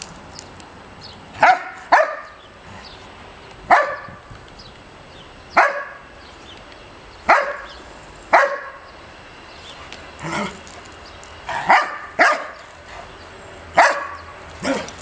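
Dogs barking in play while they play-fight: about eleven short, sharp barks, singly or in quick pairs, spaced irregularly.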